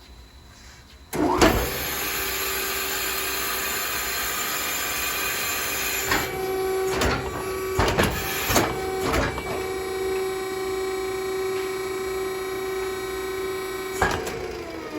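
An electric power cutting tool is switched on about a second in and runs with a steady whine while cutting contamination such as snaps and Velcro out of curtain fabric. Several sharp clicks come in the middle. It is switched off near the end, and the whine falls in pitch as the motor winds down.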